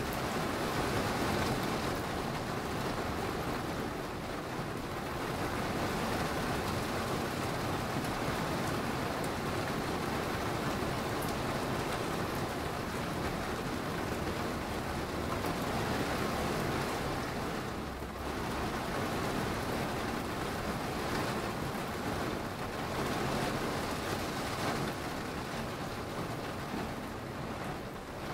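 Steady rain falling in a thunderstorm: an even hiss that dips slightly in level a couple of times.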